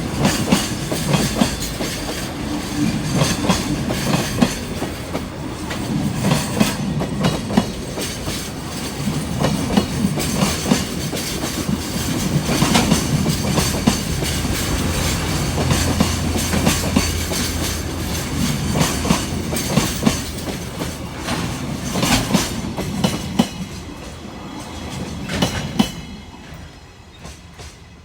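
Freight train wagons rolling past, their wheels clacking in a steady rhythm over the rail joints over a continuous rumble. The clatter fades away quickly near the end.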